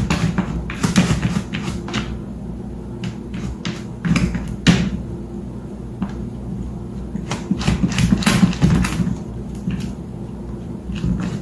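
A series of irregular knocks and clatters, clustered at times, over a steady low hum.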